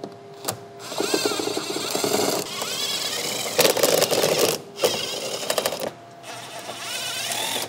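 Cordless power ratchet whirring in about five short runs of a second or so each, with a rattling buzz, as it backs out 7 mm bolts. One sharp click comes just before the first run.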